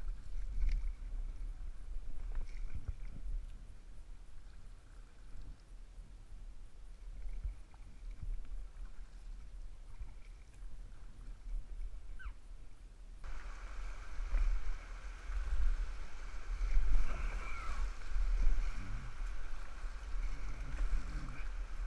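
Packraft being paddled down a river, with a low, gusting rumble of wind on the microphone and soft paddle splashes. About halfway through, a louder rush of water sets in as the raft runs into rapids.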